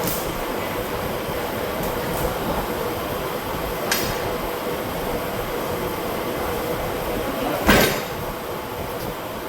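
Electric shop fan blowing with a steady rushing noise and a faint hum. There is a light metallic clink about four seconds in and a loud metal clank near the end.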